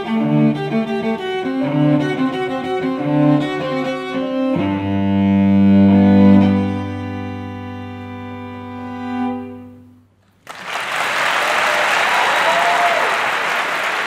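Solo cello played with a bow: a run of quick notes, then a final low chord held and fading away. About ten seconds in, audience applause breaks out.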